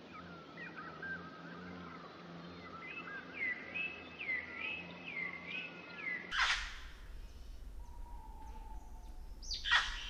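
Small birds chirping and singing, with a repeated swooping note about twice a second. A little past the middle the background changes abruptly, and loud, sharp calls sweeping downward in pitch come in twice.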